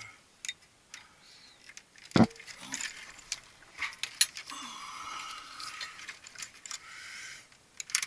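Hands handling wires and metal terminals in a heat pump's control box: scattered light clicks and rattles, one sharp knock about two seconds in, and a few seconds of rubbing noise in the middle.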